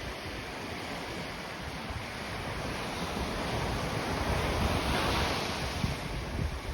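Waves washing onto a sandy beach, one wave building and breaking about five seconds in. Wind buffets the microphone throughout with low rumbles.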